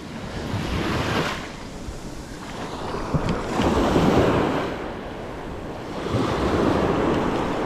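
Small waves breaking on a sandy beach, the wash swelling and falling back about every three seconds, with wind buffeting the microphone.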